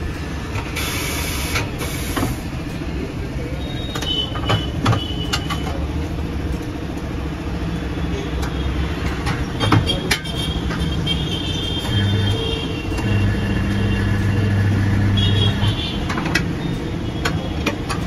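Tyre-changer machine working a scooter's tubeless tyre. A hiss of compressed air comes about a second in as the wheel is clamped, then metal clanks and clicks of the mounting head and tyre lever. An electric motor hum runs for about three seconds past the middle as the turntable turns. Under it all is a steady low rumble of traffic.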